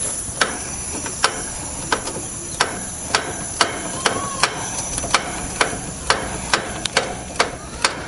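Ratcheting service-valve wrench clicking about twice a second as a heat pump's service valve stem is backed out. Under it runs a steady hiss that starts as the valve cracks open: refrigerant rushing from the outdoor unit into the evacuated line set.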